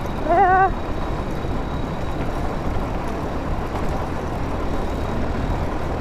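Harford VR 150 motorcycle being ridden: a steady, even rush of engine and riding noise.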